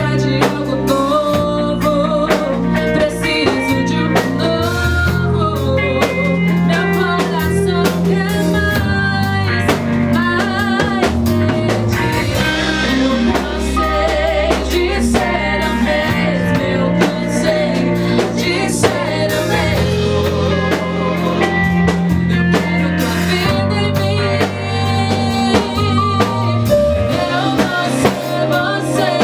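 Live band playing a worship song, with drum kit, guitar and bass, and a singer's wavering melody over them.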